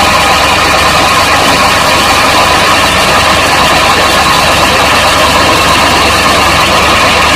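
Fiat 480 tractor's diesel engine running steadily under load, driving a tubewell pump by belt from its pulley, with water gushing from a 6-inch delivery pipe and splashing into a concrete tank.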